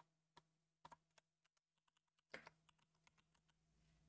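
Faint typing on a computer keyboard: an irregular run of key clicks, busiest and loudest about halfway through.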